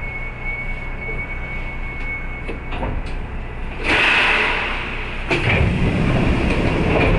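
Kintetsu 8600-series electric train at its terminal: a steady high-pitched squeal stops about two and a half seconds in, a loud hiss of air comes about four seconds in, then louder low rumbling with knocks.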